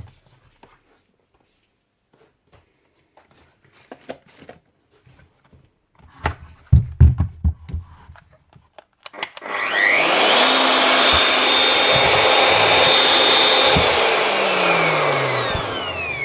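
Ryobi router's motor switched on, whining up to speed, running steadily for about four seconds, then switched off and spinning down with a falling whine; it runs on freshly replaced bearings and is sounding better. Before it, a few knocks and clicks from handling the tool.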